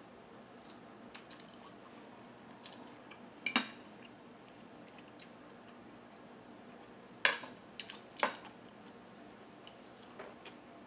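Three sharp clinks of a metal spoon against a small glass bowl of dipping sauce, about 3.5, 7 and 8 seconds in, with fainter ticks and quiet eating sounds between.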